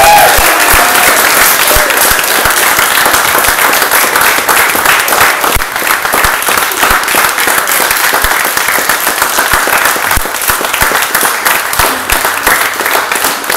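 A group of people applauding with hands clapping close by, loud at first and tapering off a little toward the end.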